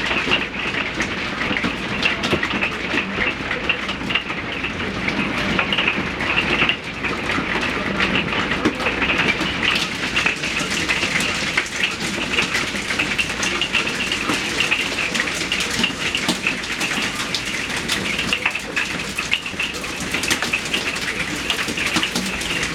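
Heavy rain from a hailstorm pelting a hard surface: a steady, dense patter of countless small impacts.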